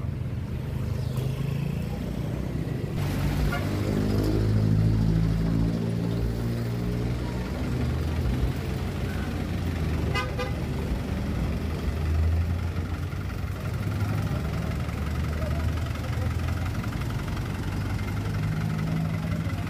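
Street traffic: vehicle engines running close by, with a short horn toot about ten seconds in.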